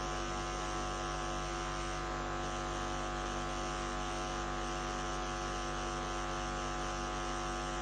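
Steady electrical hum and buzz, made of many unchanging tones, with no speech.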